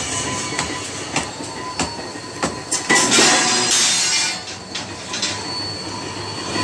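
Bolt threading machine running, its die head cutting a thread onto a steel foundation-bolt bar: a harsh metallic scraping over a steady high whine, with scattered sharp clicks and knocks in the first couple of seconds and the scraping loudest about three to four seconds in.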